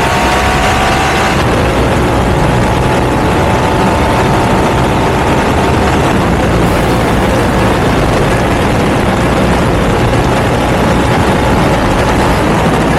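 Ducati V2 twin-cylinder engine with a Termignoni exhaust running at steady revs, a loud continuous exhaust note with a dense rushing noise. The pitch eases down slightly in the first second or so and then holds steady.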